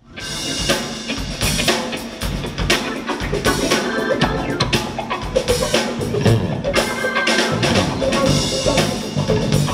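Live band music with the drum kit most prominent: snare and bass drum hits over guitar, bass and keyboard.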